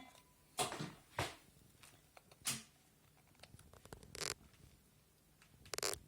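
About five short scrapes and rustles, spread unevenly over a few seconds, from hand work on a washing machine's circuit board.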